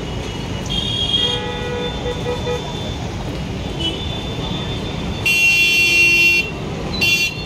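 Vehicle horns honking over steady street traffic noise: a first honk about a second in, a louder one lasting about a second some five seconds in, and a short toot near the end.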